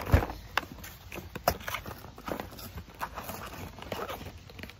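Handling noise from a cardboard toy box and its plastic packaging: irregular knocks, taps and scrapes as the box is worked at to free the toy's strapped-in feet, with a sharp knock right at the start.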